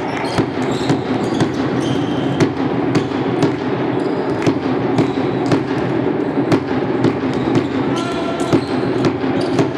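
Basketball dribbled on a hardwood gym floor, sharp bounces about twice a second, with brief sneaker squeaks over steady hall noise.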